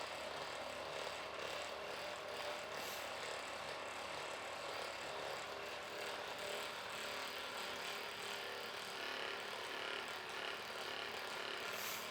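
Steady mechanical buzzing of a small motorised device running without a break.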